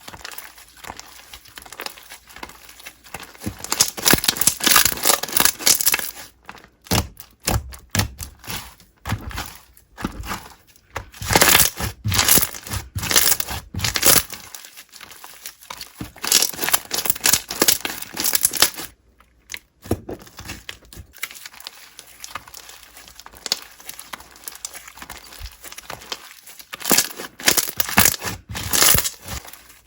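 Slime being squeezed, stretched and pressed by hand, giving irregular crackling, crinkly pops in several louder bursts with quieter handling in between.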